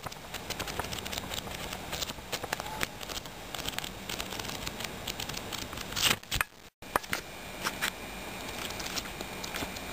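Paper pages of a thick paperback book being leafed through, a quick run of small paper ticks and rustles, with a louder rustle about six seconds in and a brief dropout of all sound just after.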